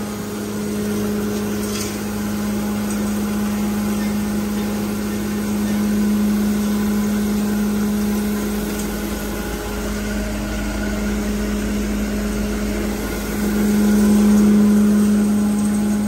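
A 7.5 HP cattle feed grinder with its blower and cyclone running steadily: a constant machine hum with one strong low tone, swelling louder for a moment near the end.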